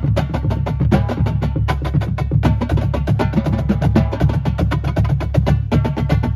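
Marching drumline playing together: tenor drums (quads), snare drums and bass drums struck in fast, dense patterns, the tuned tenor drums giving pitched tones over the low bass drum hits.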